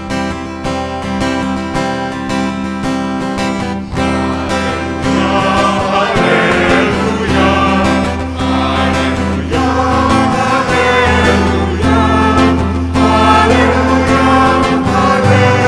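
Church choir singing the Gospel Acclamation over instrumental accompaniment. Held chords open it, and voices join about four seconds in.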